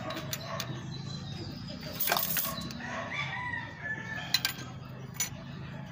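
A rooster crowing, starting about two seconds in, under the sharp metallic clicks of a wrench and feeler gauge working on an engine's valve rocker arms. The loudest click comes near the end.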